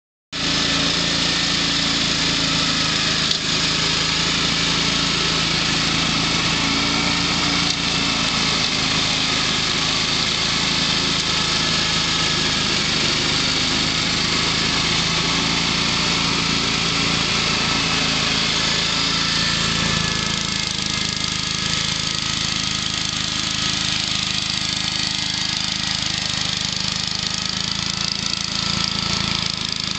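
Gasoline engine of a walk-behind two-wheel tractor with a front rotary brush mower running steadily while mowing through brush and dead leaves. Its note shifts slightly about two-thirds of the way in.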